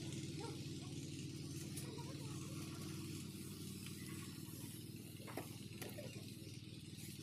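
Steady low machine hum with a high hiss over it, and two faint knocks a little past halfway.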